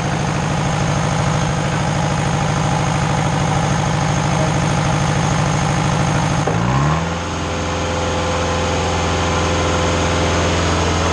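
Engine of a Mayco trailer concrete pump running steadily, then about six and a half seconds in its pitch slides down and it settles at a lower, steady speed.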